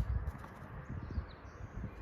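Soft, irregular thuds and scuffles of two golden retrievers romping on the ground, with small birds chirping faintly in the background.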